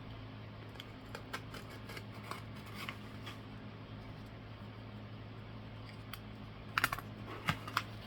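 Faint scattered clicks, taps and rustles of a cardboard subscription box and its packaging being handled, with a few sharper clicks about seven seconds in, over a steady low hum.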